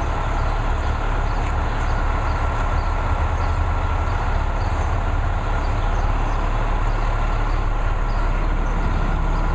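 John Deere 400D articulated dump truck's diesel engine idling steadily.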